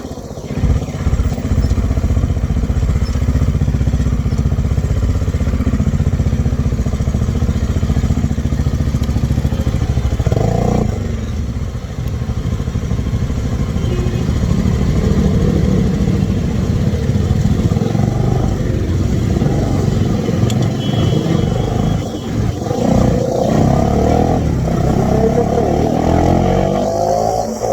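Bajaj Dominar 400 motorcycle's single-cylinder engine running loud, jumping up in level about half a second in. Its note rises briefly near the middle, and in the last few seconds it climbs in pitch several times in a row.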